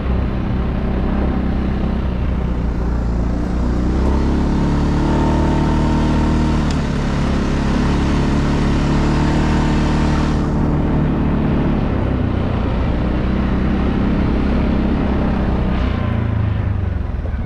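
Segway Snarler AT6 L ATV's 570 cc single-cylinder four-stroke engine running at a steady pace while the ATV is ridden, with a hiss over it that drops away about two-thirds of the way through.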